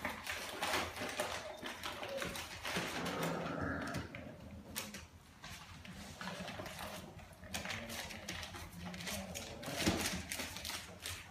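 Bandog puppies scrabbling and play-fighting on newspaper: irregular scratching, rustling and clicking of small paws and claws on paper.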